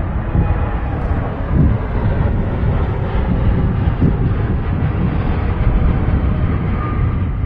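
Boeing 787 Dreamliner's twin jet engines at takeoff thrust as the airliner climbs out overhead: a loud, steady, deep rumble with a rough, fluttering edge.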